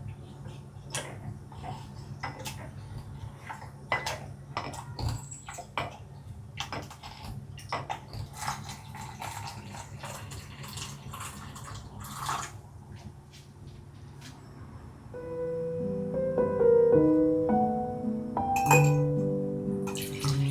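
Scattered light clinks and taps of cups, utensils and dishes being handled. About three-quarters of the way through, soft piano music comes in and takes over.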